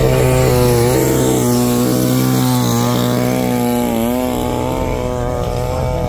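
Two-stroke chainsaw running at high revs on a large log, its engine note dipping briefly several times as it takes load.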